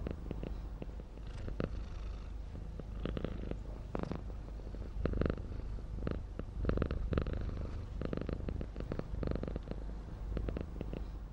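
Horse breathing heavily through its nostrils: a steady low rumble broken by a run of irregular breaths, a few of them louder about five and seven seconds in.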